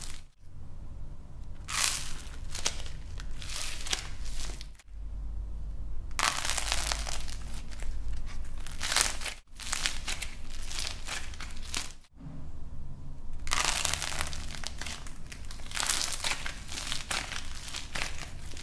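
Hands squeezing and tearing lumps of light plasticine, which crackles and crinkles. The sound breaks off briefly four times as one clip cuts to the next.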